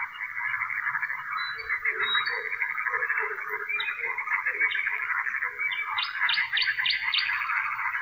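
A dense frog chorus of continuous massed croaking and trilling, with a common nightingale singing over it: a few short high whistles, then a run of rapid repeated notes about six seconds in.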